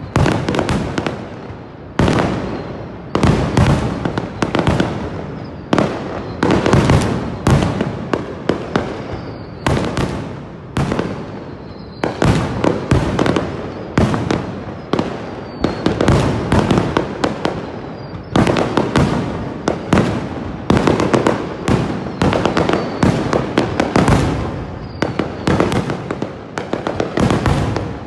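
Fireworks display: shells bursting in quick, overlapping succession, several loud bangs a second with no pause.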